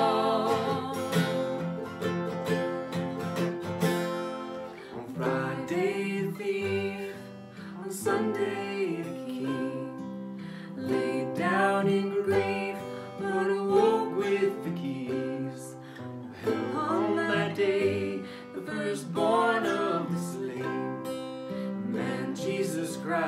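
Acoustic guitar and ukulele strummed together, accompanying a woman and a man singing a hymn.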